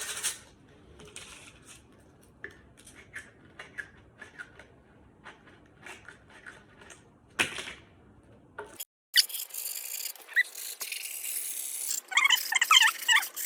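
Faint scattered ticks and handling noises, with one brief scrape. After a break, a steady hiss comes in, and near the end a dog whimpers and yips several times in quick, high, wavering calls.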